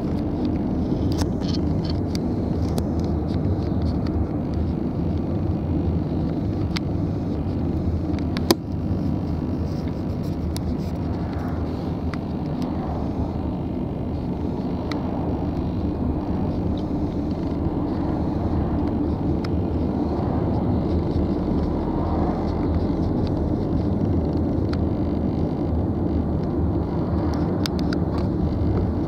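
Steady low engine rumble with a humming drone, heard from behind a car's glass, with one sharp click about eight and a half seconds in.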